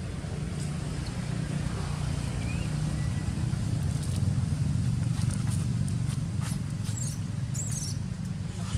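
Steady low motor-like rumble, growing a little louder, with a few short high squeaks near the end.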